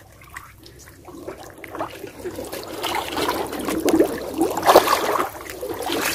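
Shallow muddy water sloshing and splashing as hands grope through it, getting louder in the second half, with water streaming off a woven bamboo basket near the end.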